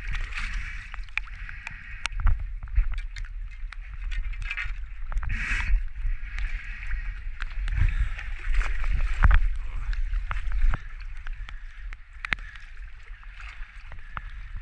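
Water moving around a camera in a waterproof housing as a snorkeller swims in shallow rocky water: a steady low rumble with sloshing and many small clicks and knocks, and a louder rush of water about five and a half seconds in.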